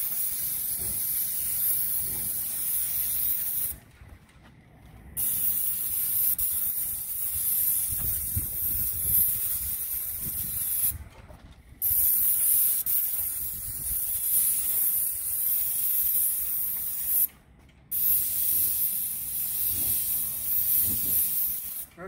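Airless paint spray gun with a 310 fine-finish tip, fed by a Graco Ultra Max II 490 electric sprayer, hissing steadily as it sprays paint in long passes. The hiss cuts off three times, about a second each, around four, eleven and seventeen seconds in, as the trigger is let off between passes.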